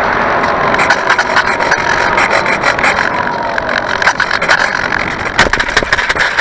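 Onboard-camera sound of a Bixler 2 foam RC glider in flight: its electric pusher motor and propeller whine under loud wind rush and rattling vibration of the airframe. Dense crackling clicks build up near the end as the plane comes in low over the snow.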